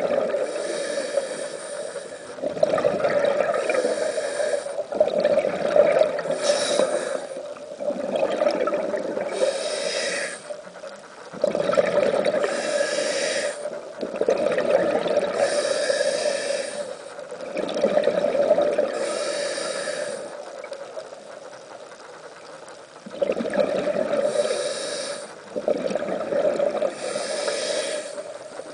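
Scuba diver breathing through a regulator underwater: each breath is a short hiss of air drawn through the regulator, followed by a longer gurgling rush of exhaled bubbles. The breaths come about every three seconds, with a longer pause about two-thirds of the way through.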